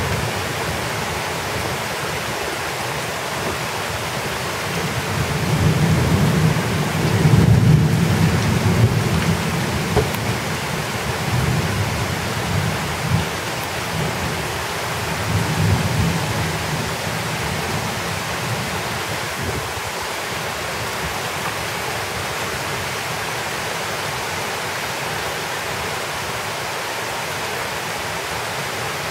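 Heavy thunderstorm rain pouring steadily, with thunder rumbling low from about five to ten seconds in and again more briefly past the middle.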